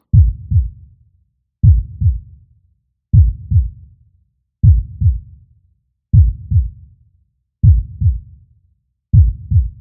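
Heartbeat sound effect: slow, steady lub-dub double thumps, deep and low, about one beat every one and a half seconds, seven beats in all.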